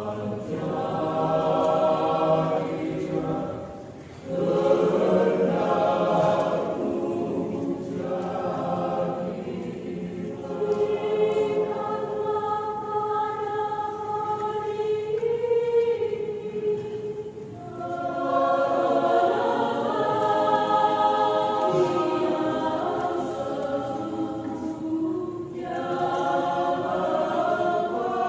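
Mixed choir of men's and women's voices singing together in long sustained phrases, with short breaks between phrases about 4, 17 and 25 seconds in.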